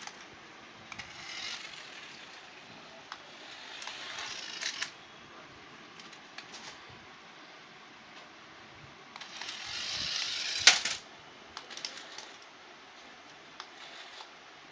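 Small toy RC car driven across a hard floor in three short runs, each a burst of whirring from its little electric motor and plastic wheels, with scattered light clicks. The loudest sound is a sharp click about two-thirds through, at the end of the third and longest run.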